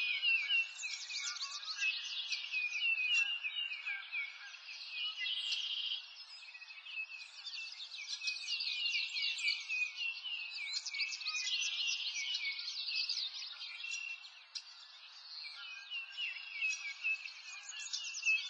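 Many small birds chirping and singing at once: rapid, overlapping high notes that thin out briefly about six seconds in and again around fourteen seconds.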